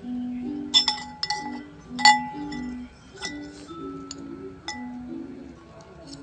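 Metal fork and spoon clinking against a ceramic plate several times, each clink ringing briefly, the loudest about two seconds in. Background music with a low stepping melody runs underneath.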